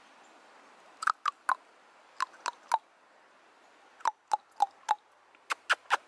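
A woodpecker pecking at a tree trunk: sharp knocks on wood in short runs of three or four, about four a second, with pauses of about half a second to a second between runs.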